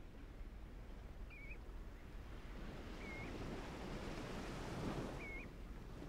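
A shorebird's short whistled call, three times about two seconds apart, over a wave washing in that swells and fades near the end.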